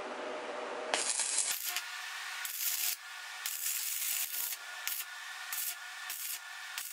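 Stick welding: the electrode's arc crackling and sputtering in irregular spurts as a planer blade is welded to a steel rod, starting about a second in after a steadier hiss.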